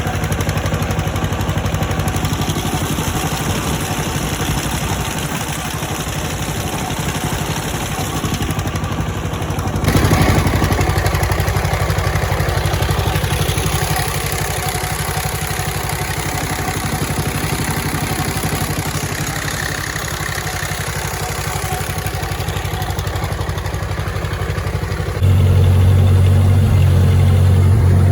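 An engine running steadily, its sound changing abruptly about ten seconds in and again near the end, when it gets louder with a strong low hum.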